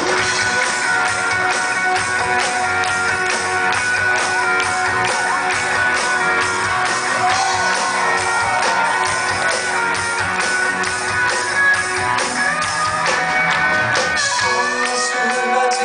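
Live band playing an instrumental passage, electric guitar leading over a steady drum beat.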